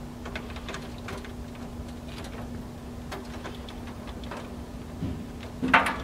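Small scattered clicks and ticks of a DVI cable connector being fitted into the DVI port on the back of a rack-mounted unit, with a louder knock near the end as it seats. A steady low hum runs underneath.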